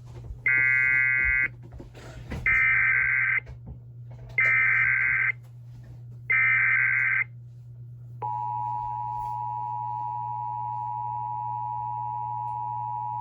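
Emergency Alert System activation: four short bursts of digital SAME header data tones about two seconds apart, then, about eight seconds in, the steady two-tone EAS attention signal starts. They announce a tsunami warning.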